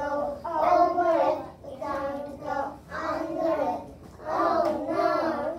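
A group of young children chanting a rhyme together in unison, in short phrases with brief pauses between them.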